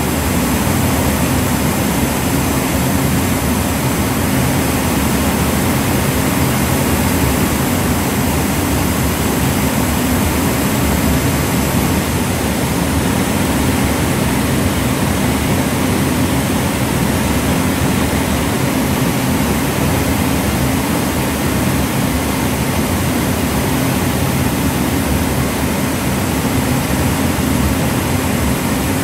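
Airbus A380's four jet engines heard from far below as the airliner passes high overhead: steady, unbroken jet noise with most of its weight low down.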